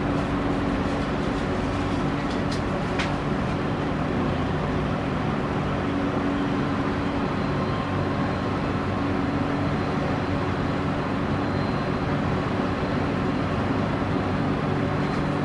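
Heavy diesel engines of an excavator and a dump truck running steadily at an even pitch while the excavator loads the truck. A couple of faint sharp clicks come about three seconds in.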